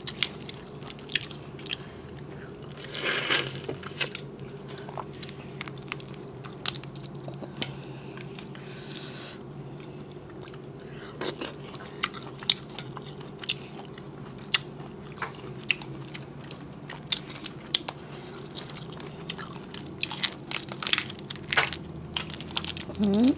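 Cooked crawfish shells cracking and snapping in many sharp clicks as they are peeled by hand, mixed with close chewing and biting. A steady low hum runs underneath.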